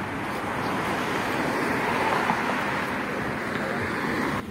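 Steady rushing outdoor noise that cuts off abruptly right at the end.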